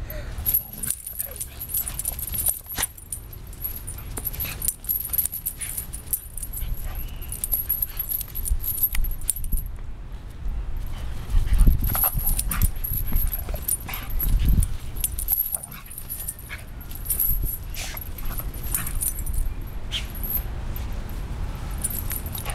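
An adult dog and a puppy play-fighting on grass, with scuffling and short, scattered dog noises.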